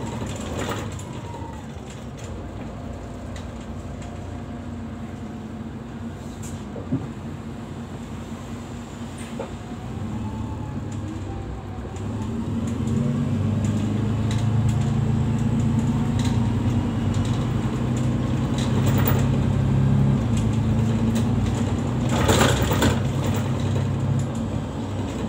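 Inside a moving city bus: engine drone and road noise with occasional short rattles. About halfway through, the engine's low hum grows louder and stronger as the bus pulls away and picks up speed.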